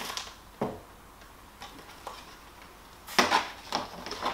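Plastic packaging and a shrink-wrapped Blu-ray case being handled: two sharp clicks at the start, then a burst of plastic rustling and clattering about three seconds in as the case is set down on the table.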